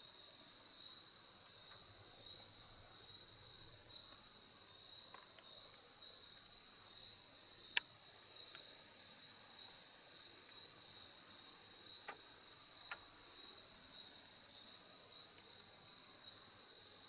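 Chorus of insects giving a steady, high-pitched shrill, with one sharp click about eight seconds in and two fainter ticks a few seconds later.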